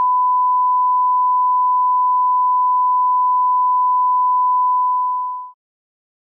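Steady 1 kHz line-up test tone, the reference tone that goes with colour bars, holding one pitch at an even level and cutting off suddenly about five and a half seconds in.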